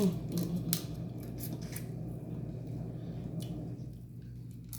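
Eating sounds from a seafood boil: wet mouth smacking and chewing with a few scattered sharp clicks, over a steady low hum.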